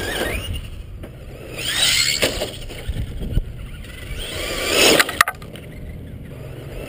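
Traxxas RC truck motor whining up and down in pitch as the truck speeds past twice. A couple of sharp knocks follow just after the second pass.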